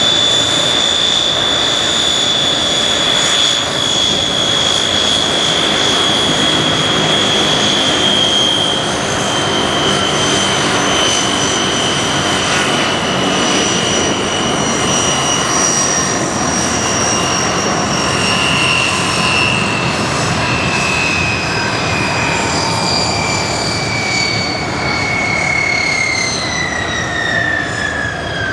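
Aircraft turbine engines running with a loud, high-pitched whine over a steady rush. The whine slowly falls in pitch and drops faster near the end.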